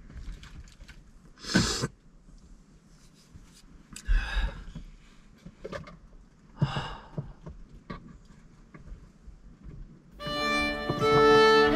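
A man's heavy sighing breaths out, three of them a few seconds apart, from someone whose throat is so sore he can hardly swallow or breathe. Near the end, violin-led string music begins.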